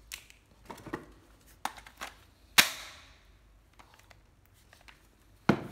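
Light clicks and knocks of a plastic cordless drill being handled, with one sharp knock about two and a half seconds in and another just before the end.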